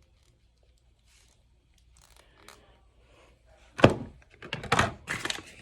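Toy packaging being handled: faint rustling, then a sharp thunk about four seconds in and several loud knocks and crinkles of plastic and cardboard after it.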